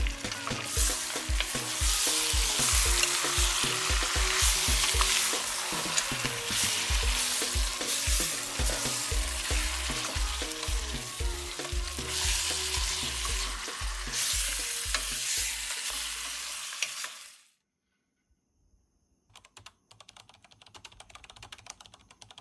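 Seasoned meat frying and sizzling in a stainless steel pot while it is stirred with a wooden spoon. The sizzle cuts off suddenly about three-quarters of the way through, and faint clicks follow near the end.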